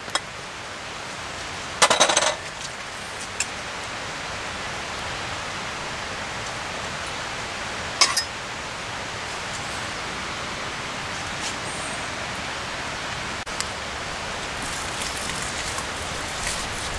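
Sausages sizzling in a buttered No. 3 Griswold cast iron skillet, a steady frying hiss that grows slowly louder. There is a brief clatter about two seconds in as the sausages drop into the pan, and a single clink of a knife against the skillet about eight seconds in.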